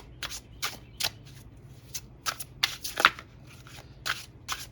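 Tarot cards being shuffled by hand: an irregular run of crisp card snaps and riffles, several a second, with the loudest about three seconds in.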